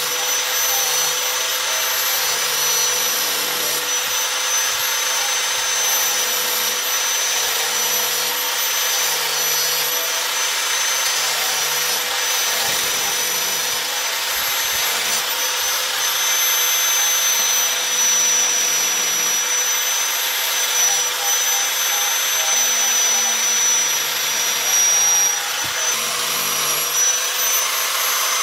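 Electric angle grinder with an abrasive disc running at a steady high whine while grinding the metal ferrule of a knife handle.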